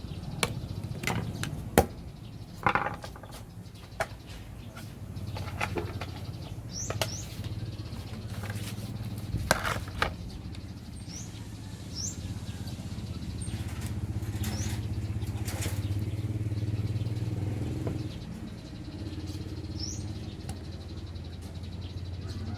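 Scattered small clicks and knocks, as of hands and tools working on a circuit board, over a steady low hum, with a few short rising bird chirps.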